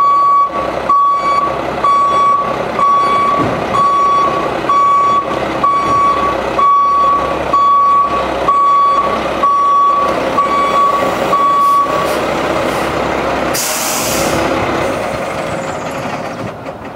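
Kenworth W900 vacuum truck's backup alarm beeping about once a second over its diesel engine running, while the truck reverses. The beeping stops about twelve seconds in, followed by a short hiss of air from the brakes as the truck pulls away and the engine sound fades.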